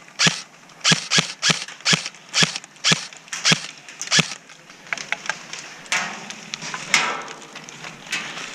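Airsoft rifle fired in rapid semi-automatic, about two to three sharp cracks a second for roughly four seconds, then a few fainter clicks and rustling of movement.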